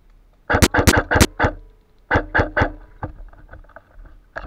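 Airsoft gun firing in quick bursts: a rapid string of about five shots about half a second in, then three more about two seconds in, with fainter scattered shots after and one more sharp one near the end.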